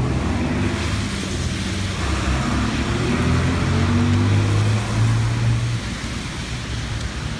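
Street traffic on a wet road: a nearby vehicle engine running with a low hum, loudest a few seconds in and easing off near the end, over a steady hiss.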